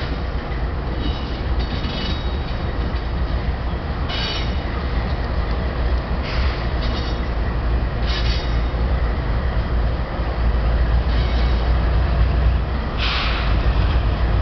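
Light-engine consist of Canadian Pacific diesel locomotives rolling past, their engines giving a steady low rumble, with brief high wheel squeals every couple of seconds; it gets a little louder about two-thirds of the way through.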